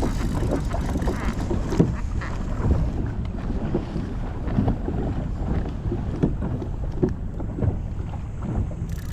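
Wind buffeting the microphone over water slapping against a kayak's hull, with small irregular knocks and splashes.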